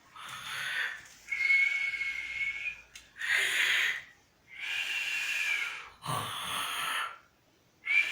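A man snoring in his sleep. Each breath is a rough, noisy snort followed by a long whistling note held at one high pitch, and the cycle repeats about every three seconds, close to three times.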